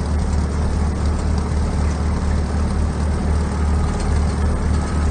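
International Harvester crawler dozer's diesel engine running steadily as the machine is driven at low speed, a deep, even throb with a slight regular pulse.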